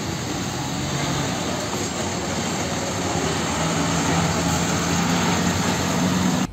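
Diesel tractor-unit fuel tanker truck driving past: steady engine drone and tyre noise, with a low engine note coming through more clearly about halfway through as the truck passes close.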